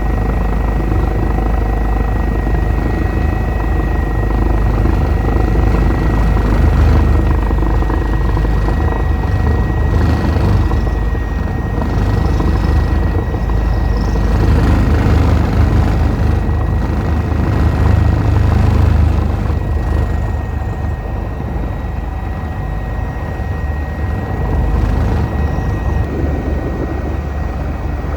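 Eurocopter EC145 twin-turbine helicopter in flight: a steady, loud rotor and engine drone with a constant high whine over it.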